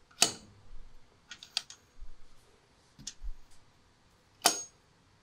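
Scattered light metallic clicks and clinks of gearbox parts being handled in a Minsk 125 engine's open aluminium crankcase, with two sharper clacks, one just after the start and one near the end.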